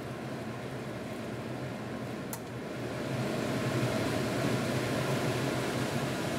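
Range hood exhaust fan running steadily. A sharp click about two seconds in, then the fan runs louder as it comes up to speed 2.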